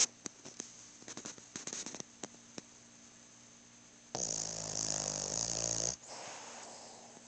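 Snoring: one long, pitched snore lasting about two seconds, a little past halfway, trailing off into a softer breath. A scatter of sharp clicks comes in the first two seconds or so.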